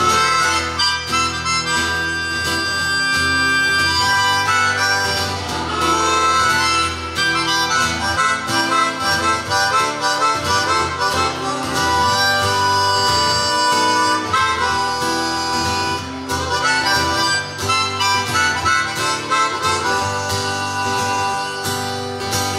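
Harmonica solo played into a microphone over a strummed acoustic guitar, mixing long held notes with quicker runs.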